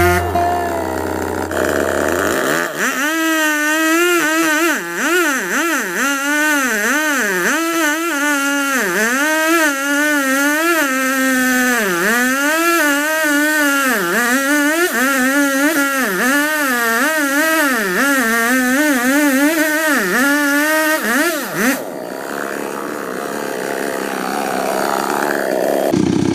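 Small two-stroke chainsaw engine running hard, its pitch dropping and climbing again every second or two as the speed rises and falls. It cuts out a little over 20 seconds in.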